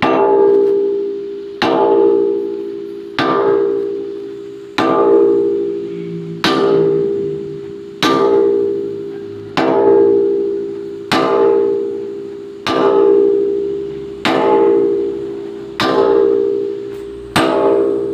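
Steady sledgehammer blows on a steel excavator bucket pin, about one every second and a half. Each strike rings with a metallic tone that dies away before the next.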